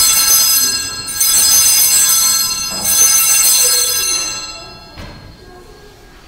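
Altar bells (sanctus bells) rung at the elevation of the host, marking the consecration: a bright, many-toned ringing already sounding at the start, rung again about a second in and once more about three seconds in, the last ring fading away before the end.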